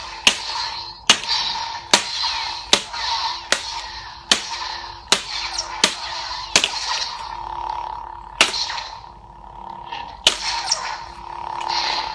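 Two Hitoren LED sabers' built-in soundboards playing a steady electronic hum, with a sharp clash crack each time the blades are struck together: about one clash a second for the first seven seconds, then two more further apart.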